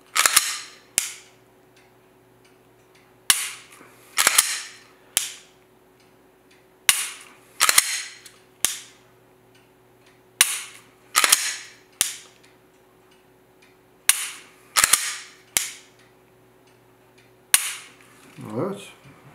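Glock 17 Gen 5 pistol being dry-fired over and over: a sharp click as the trigger breaks, then the rasp and clack of the slide being racked to reset the striker. The cycle repeats about every three and a half seconds, five or six times, over a faint steady hum.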